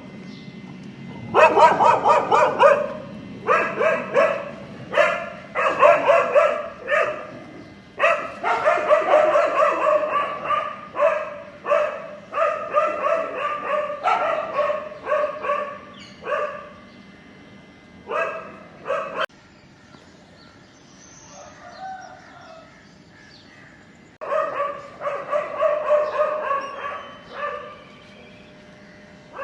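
Puppy yelping and whining in quick runs of short, high-pitched cries. The cries break off for about five seconds late on, then start again.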